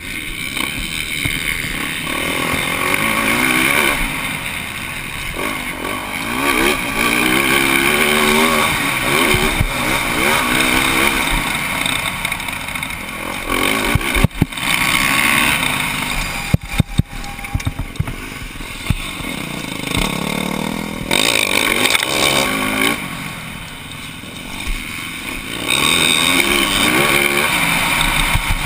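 Motocross bike engine revving up and down with the throttle as it is ridden hard, with wind rushing over a helmet-mounted camera's microphone. A few sharp knocks come in the middle.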